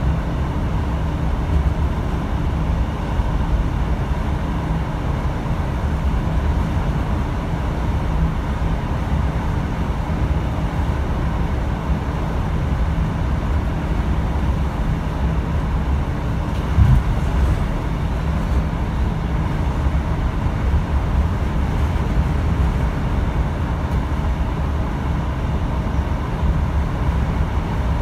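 Interior running noise of a British Rail Class 150 Sprinter diesel multiple unit at speed: the steady drone of its underfloor Cummins diesel engine mixed with the rumble of wheels on the rails, with a single thud a little past halfway.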